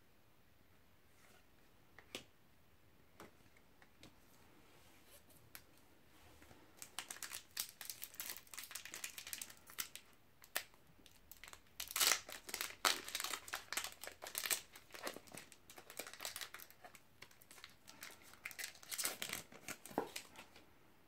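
Trading-card booster pack wrapper crinkled and torn open by hand. After a few faint ticks, the crackling starts about a third of the way in and turns loudest about halfway through. It carries on in uneven bursts until just before the end, as the wrapper is worked open and the cards are pulled out.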